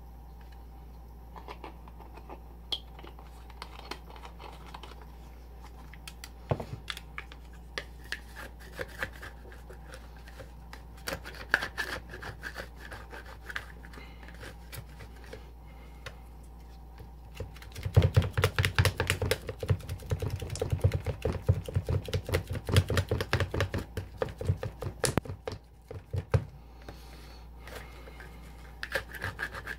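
Two plastic spatulas tapping and scraping on the frozen metal plate of a home rolled-ice-cream pan, chopping cream and mozzarella as it freezes. Scattered taps at first, then a long run of rapid chopping a little past halfway, easing back to scattered taps near the end.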